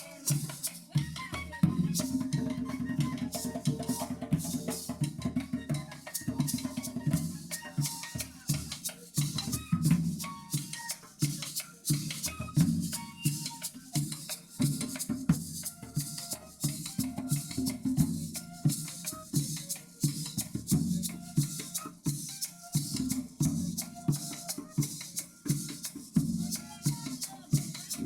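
Colombian gaita ensemble playing: cane gaita flutes carry a melody over hand drums and maraca, in a steady driving rhythm.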